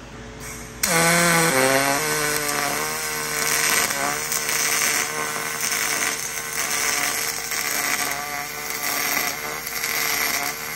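YesWelder YWM-211P pulse MIG arc welding aluminum in single-pulse mode. The arc strikes suddenly about a second in and then runs steadily: a pitched buzz over a hiss as the fillet weld is laid.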